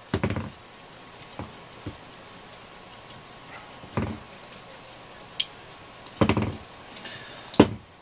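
Hard objects being handled and set down on a hard surface: a short clatter at the start, single knocks about one and a half and four seconds in, another clatter just after six seconds, and a sharp knock near the end.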